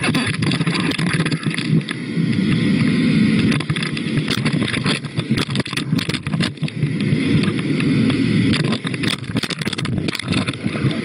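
Muffled rushing water noise picked up by a GoPro in its waterproof housing underwater, with many short knocks and clicks against the housing.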